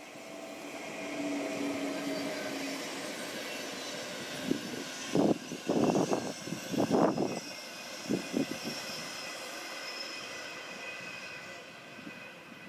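A train passing: rolling noise builds, then about five seconds in comes a series of loud knocks as its wheels run over rail joints or points, before the rolling sound slowly dies away.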